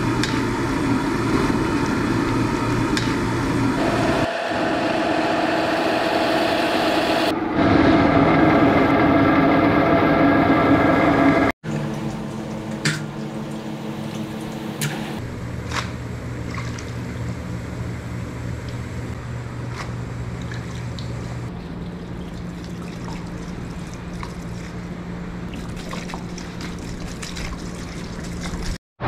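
Water bubbling and sloshing in a large boiling pot as a metal strainer ladle works through it, over a steady mechanical hum. After a sudden cut, a quieter steady hum with a few sharp metal clinks of kitchen utensils.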